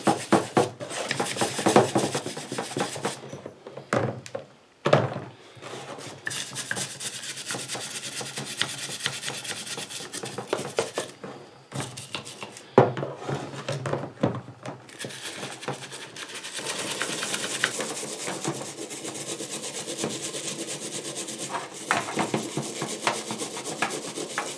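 Metal-bristled wire brush scrubbing carbon deposits off a small Briggs & Stratton lawn mower engine's cylinder head in a tub of degreaser: a steady rasping rub of strokes, broken by short pauses and a few sharp knocks.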